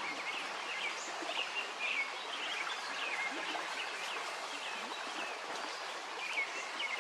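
Steady rush of flowing stream water, with many short bird chirps repeating over it.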